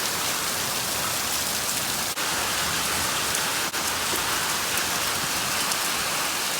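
Steady rain falling on surfaces, a dense even hiss with many small drop impacts, broken by two momentary dips about two and three and a half seconds in.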